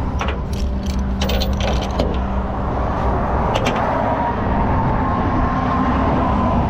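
Vehicle engine running steadily with road traffic, and a run of sharp clicks in the first two seconds, then one more about three and a half seconds in.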